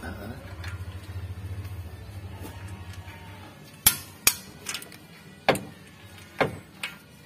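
Sharp metallic clicks from a click-type torque wrench tightening cylinder head bolts to torque. There are six clicks in about three seconds, starting about four seconds in, and the first two are the loudest. A low steady hum sits under the first half.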